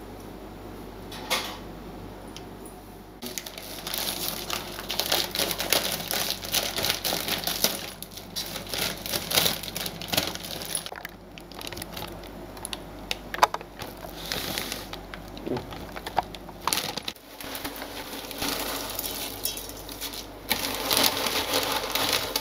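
Plastic noodle packet crinkling and rustling as it is handled and opened, with dry noodles rattling inside. Crackles and clicks come in a dense run starting about three seconds in.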